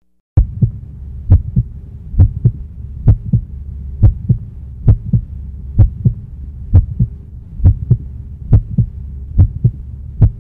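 Heartbeat sound effect: paired low thumps, lub-dub, about one beat a second over a steady low hum, starting after a brief silence at the beginning.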